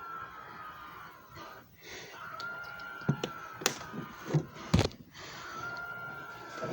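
A small motor whining at a steady high pitch in short spells of about a second, heard three times, with several sharp clicks and knocks in between, typical of a disc being handled and the lid or tray of a machine being worked.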